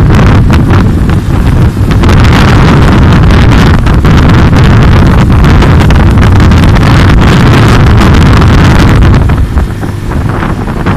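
Heavy wind buffeting the microphone of a phone carried on a moving motorcycle, over the bike's road and engine noise. The buffeting eases off about nine seconds in.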